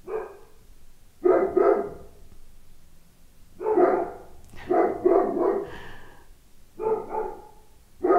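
Dogs barking repeatedly: about eight short barks in uneven groups of one to three.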